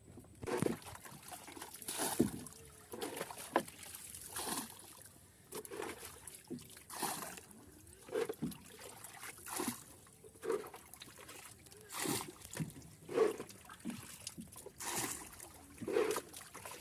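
Rhythmic splashing of river water, about one splash every second or so.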